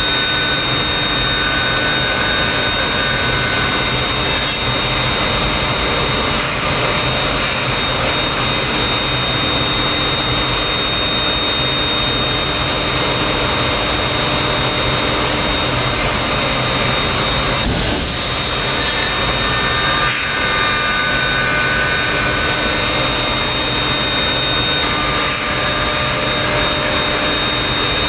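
Thermwood M-90 five-axis CNC router's spindle running at speed with a small end mill cutting MDF: a steady, loud rushing noise with a constant high-pitched whine.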